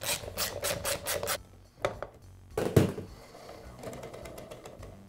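Hex key working the screws that hold the magazine on a MAX roofing nailer, with metal scraping and rubbing against the tool. A quick run of about six scraping strokes comes first, then a knock near the middle, then fainter rubbing.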